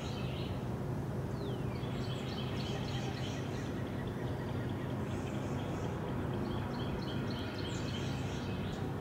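Birds chirping in quick repeated series, with one falling whistle about a second and a half in, over a steady low outdoor background noise.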